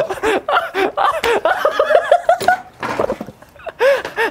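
Men laughing hard in quick repeated bursts, dropping off briefly about three seconds in, then starting up again.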